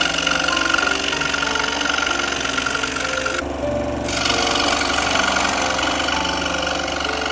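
Scroll saw running, its blade reciprocating as it cuts thin plywood, with a steady mechanical hum and a high whine. The high whine drops out for about half a second near the middle, then returns.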